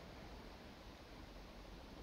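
Near silence: faint, steady background hiss with no distinct sounds.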